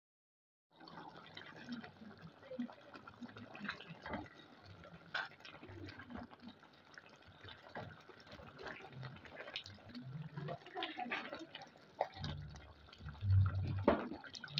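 Thick tomato stew of minced meat and green peas being stirred with a silicone spoon in a simmering pan: faint wet sloshing and bubbling with small clicks, starting about a second in, with a few louder soft knocks near the end.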